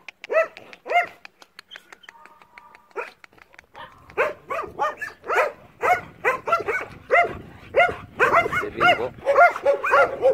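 Dogs barking: two single barks at the start, then after about four seconds a quick run of barks that comes thicker and overlapping near the end.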